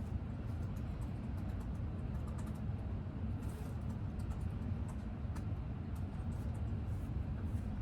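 Steady low rumble of background noise with faint, scattered ticks.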